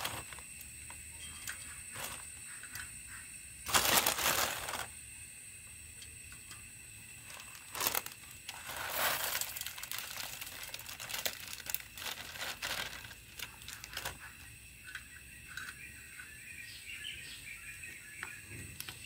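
Plastic Maggi noodle packet crinkling and rustling in short, irregular bursts as it is handled and the noodle cakes are shaken out into the camping pot, the loudest rustle about four seconds in.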